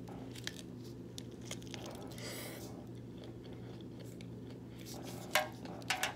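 A person chewing a first bite of a Chipotle burrito, with soft wet mouth clicks over a low steady hum. There are a few sharper clicks near the end.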